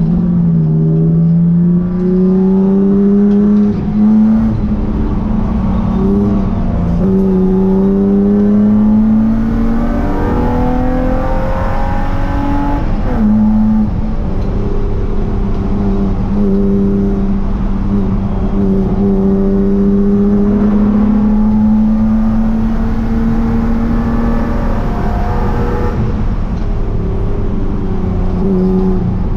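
Straight-six engine of a BMW E36 Spec3 race car at racing speed, heard from inside the stripped cockpit. The engine note climbs through the gears and drops at each shift, with a sharp fall about halfway through as it slows for a corner.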